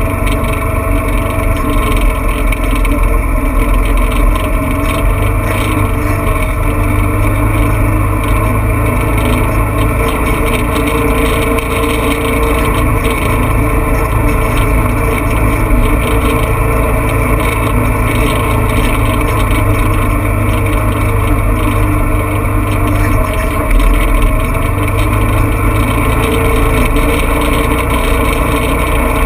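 Off-road vehicle's engine running at a steady speed while driving, with a steady low rumble underneath.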